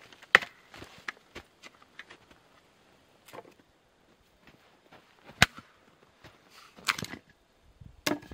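Small hatchet chopping firewood on a stump block: four sharp chops spread over several seconds, the first the loudest, with lighter knocks of wood between them.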